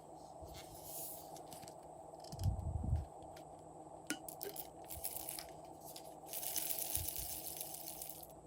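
Slime being worked by hand: scattered squishes, clicks and crackles, with a couple of low thumps about two and a half seconds in and a longer crackling hiss near the end.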